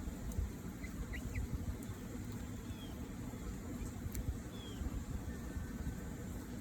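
A few short, high chirps from house finches, scattered over a steady low rumble, with one sharp click about four seconds in.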